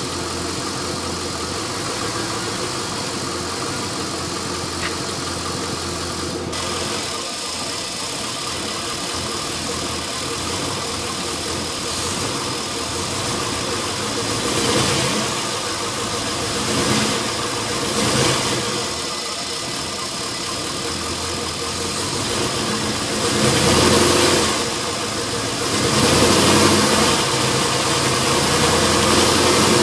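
Pontiac LS1 5.7-litre V8 idling roughly, its level swelling and dropping several times in the second half. The rough idle comes from a leak at an open fitting left uncapped after an AIR/EGR delete, with new headers and intake manifold fitted.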